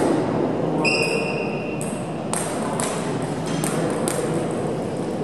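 Table tennis balls clicking sharply against bats and tables, about five scattered hits, echoing in a large sports hall. One hit about a second in leaves a ringing tone for about a second. A steady murmur of hall noise runs underneath.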